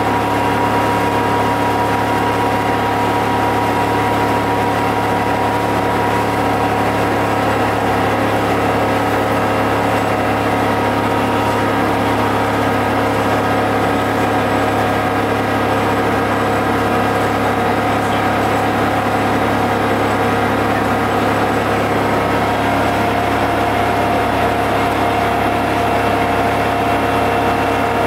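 GM TDH-5303 transit bus's two-stroke Detroit Diesel engine running steadily, an even drone with no change in speed.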